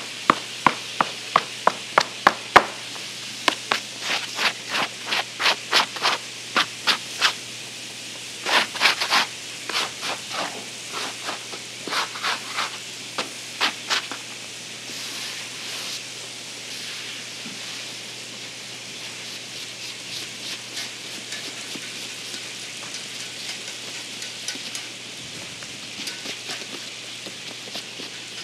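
Metal dough scraper chopping against a floured work table in quick runs of sharp knocks, two or three a second, through roughly the first half. After that come softer rubbing and scraping of gloved hands and the scraper on dough and flour, over a steady background hiss.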